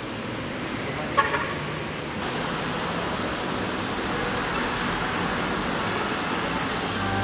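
Street traffic on a wet road: a steady hiss of tyres and engines, with a short horn toot about a second in.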